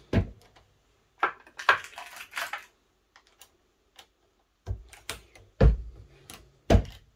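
Turret reloading press seating bullets in rifle cases: brass cases and bullets clicking and clattering as they are handled and set in the press, with a few dull knocks as the press lever is cycled, two of them near the end.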